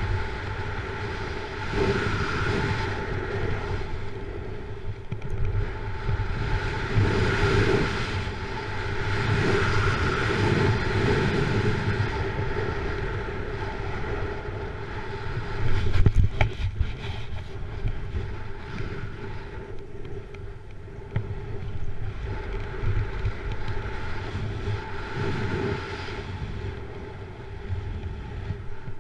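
A snowboard slides and carves over packed, groomed snow while wind rushes over the microphone. The rushing swells and eases with each turn, and there is one sharp knock about sixteen seconds in.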